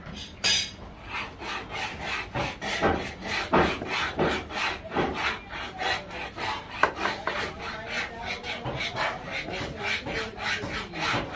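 Large knife slicing a boneless fish fillet into chunks on a wooden log chopping block, the blade rasping through the flesh and scraping the wood in quick even strokes about four times a second.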